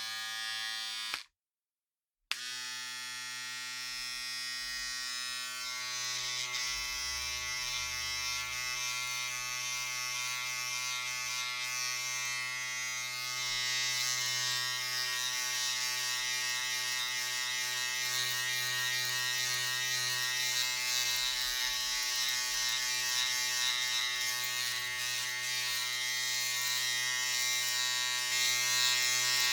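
Electric razor buzzing steadily. It cuts out about a second in and starts again a second later, and its buzz grows brighter and a little louder partway through.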